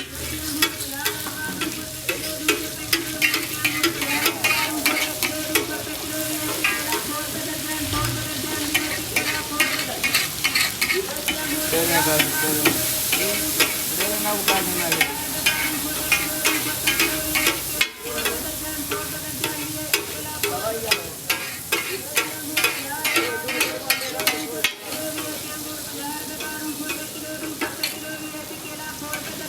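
Mutton tikka boti frying and sizzling in a karahi while a metal spatula stirs and scrapes it, with rapid sharp clatters against the pan. The sizzling is loudest for a few seconds about twelve seconds in.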